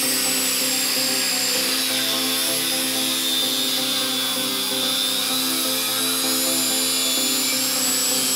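Angle grinder with an abrasive cut-off disc cutting through a steel bar, running as a steady high whine whose pitch sags a little a couple of seconds in and comes back up near the end, with background music underneath.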